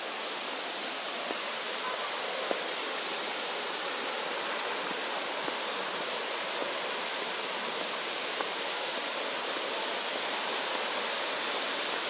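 Steady rush of falling water from a waterfall, an even hiss that grows slightly louder, with a few faint ticks.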